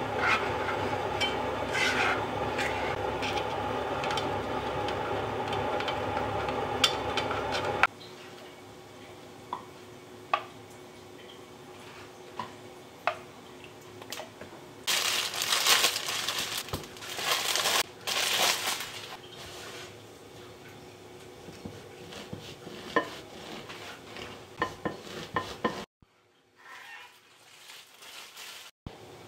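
Ceramic plates and bowls clinking and knocking as they are picked up, turned over and set back down, in a scatter of short clinks with a few louder clusters of handling. For the first eight seconds a louder, steady background sound runs under the clinks and cuts off sharply.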